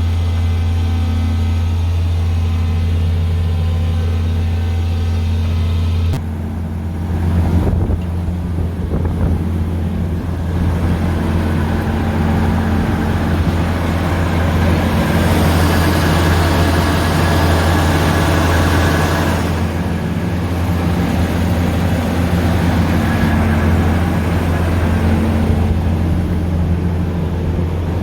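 Harvest machinery engine running steadily with a deep hum. About six seconds in the sound shifts abruptly, and a rushing mechanical noise builds over the engine from about ten seconds before easing off around twenty seconds.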